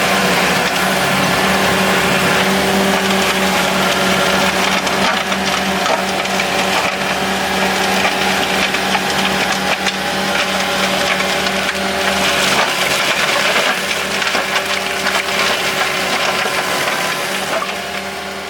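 Pfanzelt Moritz FR 75 forestry machine running steadily, its mulcher shredding brush and wood with a dense crackling and splintering over the even engine hum. The sound fades away near the end.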